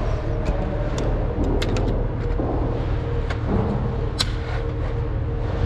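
Scattered sharp clicks and small knocks from a Thule roof-rack crossbar clamp being handled and pushed into the bar end, the loudest about four seconds in, over a steady low hum.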